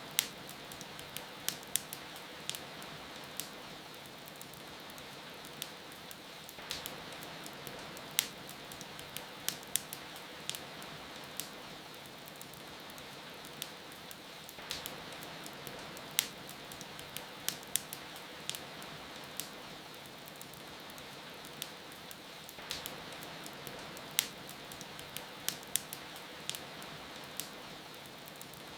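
Wood fire in a fireplace crackling, with irregular sharp pops, over a steady hiss of rain.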